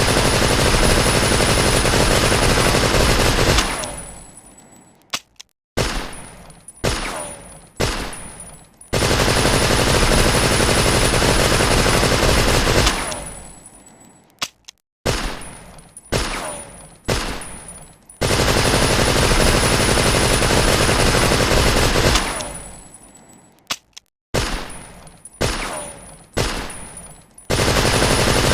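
Tommy gun (Thompson submachine gun) sound effect: long bursts of full-automatic fire lasting three to four seconds, each fading away in a trailing echo, alternating with clusters of short bursts; the sequence repeats three times.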